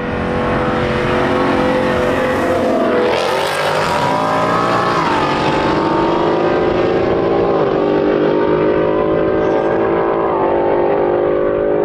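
Car engines at full throttle in a street drag race: the pitch climbs and then drops sharply at each upshift, about four times, as the cars accelerate away.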